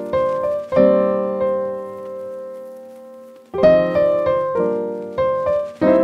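Background piano music: chords struck and left to ring out, with one long chord fading through the middle before the playing picks up again.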